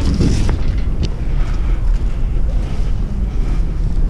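Wind buffeting the microphone: a steady, loud low rumble, with a couple of faint clicks about half a second and a second in.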